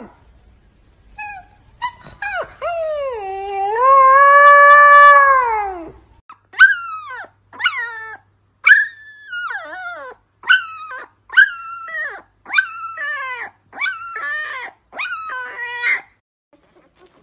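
A husky puppy howls: a few short starts, then one long howl of about four seconds that dips and rises in pitch. After that a newborn husky puppy lying on its back gives about a dozen short, high squeals, each falling in pitch, roughly a second apart.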